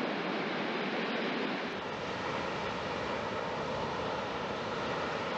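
Steady rushing jet noise from a C-17 Globemaster III's turbofan engines as the aircraft taxis on the ground.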